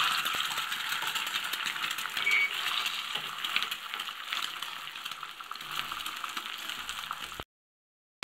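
Egg frying in hot oil on an iron tawa, a dense sizzle full of small crackles that slowly dies down, then cuts off abruptly near the end.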